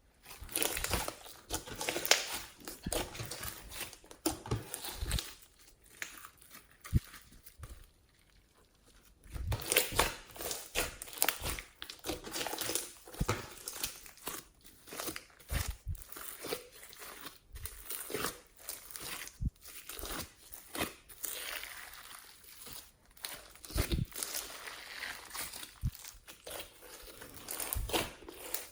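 Slime being squished, stretched and pressed by hand, giving a dense run of wet crackles, pops and clicks. It goes nearly silent for a moment about eight seconds in.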